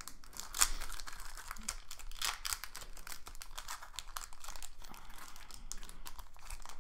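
Foil wrapper of an Upper Deck hockey card pack crinkling and crackling in the hands as fingers pick and pull at its crimped end to tear it open, with a sharper crackle about half a second in.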